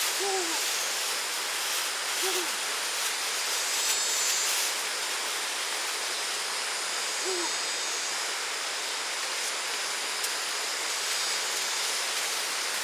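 Steady rush of flowing water, with a few brief low calls standing out over it: one at the start, one about two seconds in and one past the seven-second mark.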